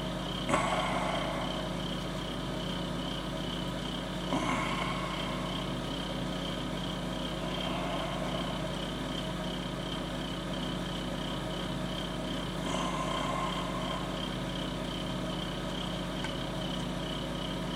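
Steady low hum and hiss of room background noise, with a few faint brief sounds about half a second, four seconds and thirteen seconds in.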